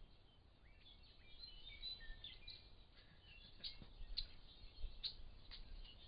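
Faint, scattered bird chirps and short whistles.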